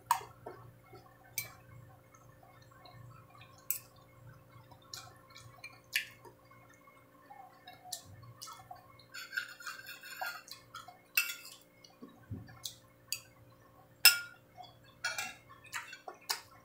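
Close-up eating sounds: wet chewing and mouth noises, broken by a dozen or so sharp clinks of a metal spoon and fork against a ceramic plate.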